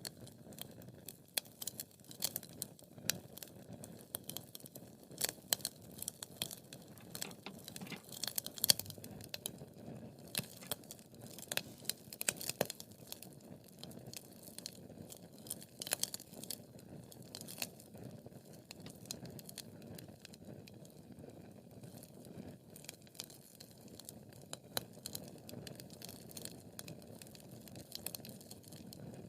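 Wood fire crackling in a fireplace: frequent sharp, irregular pops and snaps over a low, steady rustle of the flames, with one louder pop about nine seconds in.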